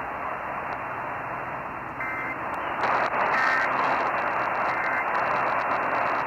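Heavy radio static and hiss from a receiver with a narrow, AM-radio-like sound. Three short bursts of warbling data tone come about 2, 3½ and 5 seconds in, matching the Emergency Alert System's End of Message signal that closes the warning.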